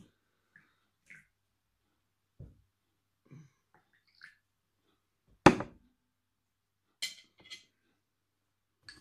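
A stainless steel moka pot and mugs handled on a table: a few soft knocks, a sharp knock about five and a half seconds in, then light clinks a couple of seconds later.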